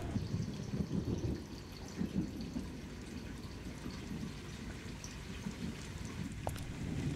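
Water trickling and dripping in a small tiled bathroom over a steady low rumble, with one sharp drip-like click about six and a half seconds in.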